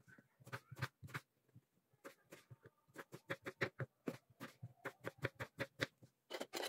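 Kitchen knife chopping peeled aubergine on a plastic cutting board: a quick run of sharp taps, sparse at first and then about four a second, bunching together near the end.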